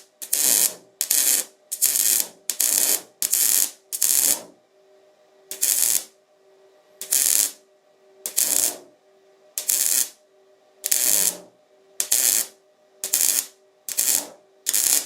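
MIG welder arc struck in about sixteen short crackling bursts, a rapid stitch of tacks to bridge a wide gap that the weld won't fill in one pass. The bursts come about two a second at first, then slow to roughly one every second and a half, with a faint steady hum between them.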